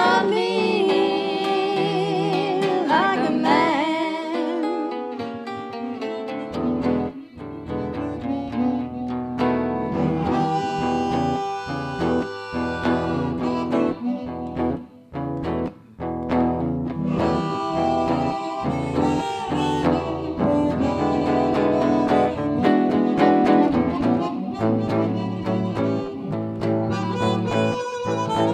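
Harmonica solo over electric guitar accompaniment in an instrumental break of a blues song, with wavering, bent held notes in the first few seconds and a fuller low end coming in about six seconds in.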